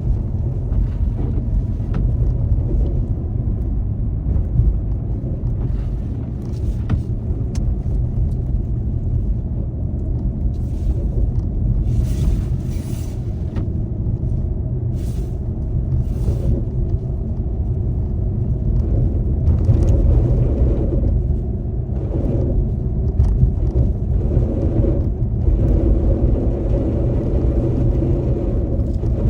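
A car driving on a snowy road: a steady low rumble of engine and tyres, as heard by a dashboard camera. A few brief hisses come through near the middle.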